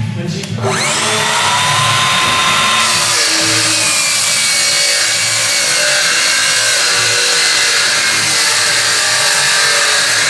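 Festool HKC55 18V cordless circular saw spinning up with a rising whine about half a second in, then cutting through a pine board on its crosscut rail, its motor running steadily under load.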